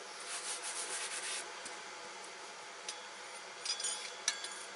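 A rubbing, scraping sound for about the first second and a half, then a few sharp light clinks with a brief ring near the end.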